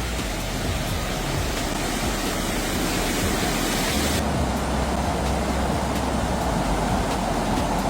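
Flash floodwater rushing, a steady, dense noise of moving water.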